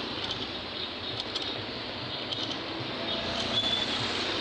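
Steady street traffic and road noise, with a brief high squeal about three seconds in.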